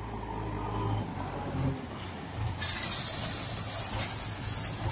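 Heavy truck and loading-machine engines running at a stone-loading point. About halfway through, a loud, steady hiss joins them and keeps on.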